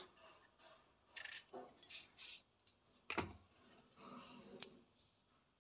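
Faint, scattered clicks and taps of small brinjals being handled on a plate and sliced with a kitchen knife, the sharpest tap about three seconds in.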